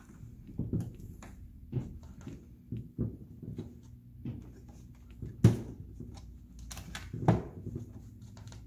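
Hard plastic wall panels of a toy castle playset knocking and clicking as they are fitted and snapped onto the frame, with two louder snaps about five and a half and seven seconds in.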